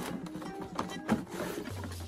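Rustling and knocking of cardboard packaging and a hard plastic vacuum wall dock being handled and lifted out of its box, with one sharper knock about a second in, over background music.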